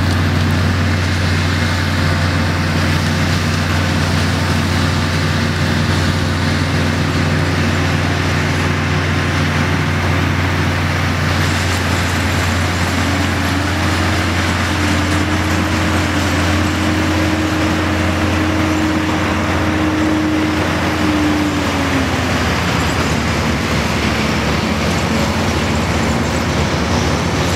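Combine harvester running steadily during seed corn harvest: a constant low engine hum with mechanical noise over it, and a higher whine that comes in about halfway through and drops away a few seconds before the end.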